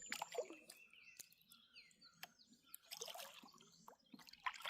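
Faint songbirds calling, with a few thin whistles and curving chirps, over scattered drips and light trickling of water.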